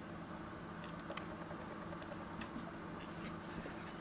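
Faint scattered ticks and taps from a laptop touchpad, heard over a low steady hum as the pointer is moved through a menu.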